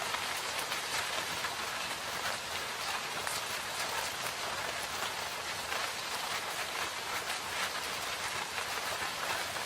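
Steady rain falling in a forest, an even hiss with many close, distinct drops hitting leaves and surfaces.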